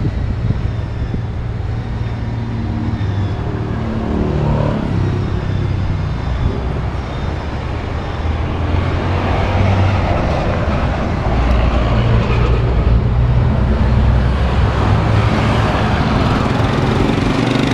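Car engine running, a low rumble whose pitch shifts up and down several times and grows louder in the second half.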